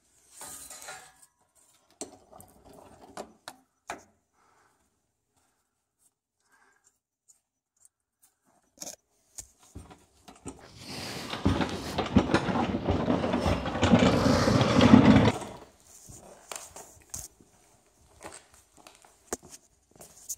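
Handling noise: rubbing, scraping and clicking as the camera is moved about and covered. About halfway through comes a dense stretch of loud scraping and rustling lasting some five seconds, with scattered light clicks and knocks before and after.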